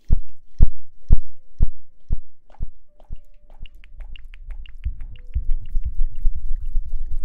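Close-miked ASMR trigger sounds: heavy thuds about two a second, then quick light ticking about halfway through, giving way to a low rustling rub against the microphone near the end.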